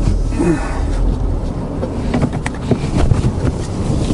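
Ford Focus ST's 2.0-litre turbocharged four-cylinder running with a steady low rumble as the car moves off, heard inside the cabin, with a few light knocks about two and a half seconds in.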